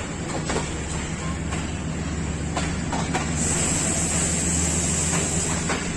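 Passenger coach wheels rolling slowly over the rails as the train pulls out, with irregular clicks over the rail joints and a steady low hum underneath. A high hiss joins about halfway through.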